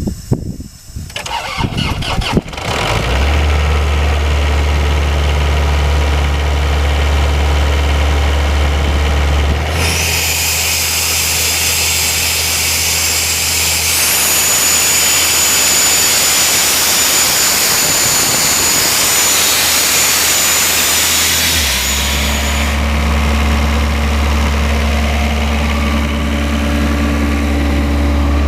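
Airman PDS 185S portable diesel air compressor cranking over and catching within the first few seconds, then running steadily. About ten seconds in, a loud hiss of rushing air with a high whistle starts and the engine note changes, as the compressor loads and blows off air, for about thirteen seconds. Then the hiss stops and the engine runs on steadily.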